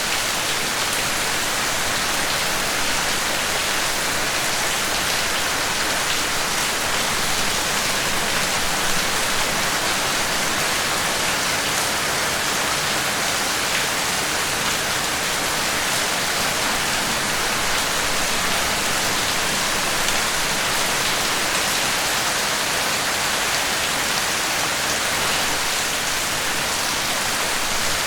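Steady rain falling, an even hiss with fine drop patter.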